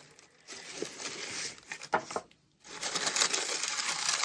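Paper and packaging rustling and crackling as a parcel is unwrapped by hand, in two stretches with a sharp click about two seconds in.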